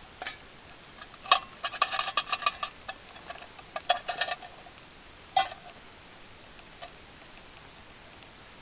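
Metal clinking and rattling in two quick clusters and then one single clink, each with a short ringing tone, over a faint steady hiss.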